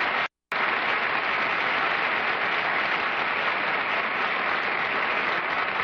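Studio audience applauding steadily, broken by a split-second gap in the sound just after the start.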